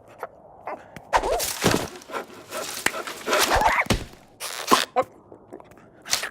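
Cartoon sound effects: several sudden noisy bursts, the longest lasting about a second and a half, mixed with a cartoon character's wordless cries.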